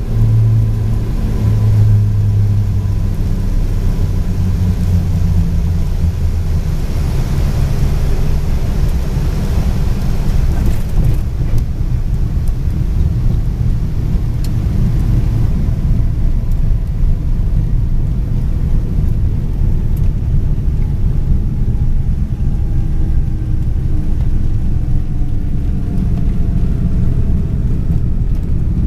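Cockpit noise of a twin-engine Cape Air Cessna landing. The engines' loud, steady drone drops away after about six seconds as power comes off, leaving a steady rumble of airflow and wheels as the plane rolls out on the runway.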